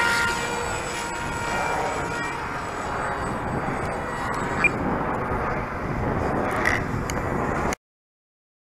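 RC model airplane flying at a distance: a faint motor whine dies away over the first few seconds, leaving a steady rushing outdoor noise. The sound cuts off abruptly to silence near the end.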